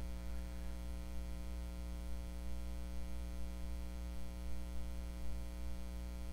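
Steady electrical buzz on the recording: a constant mains-type hum with a ladder of evenly spaced overtones and no change in pitch or level.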